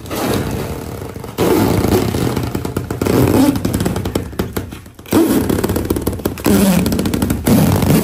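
Thick plastic wrapping on a rolled, vacuum-packed mattress crackling and rustling loudly as it is cut open and pulled off, with a short break about five seconds in.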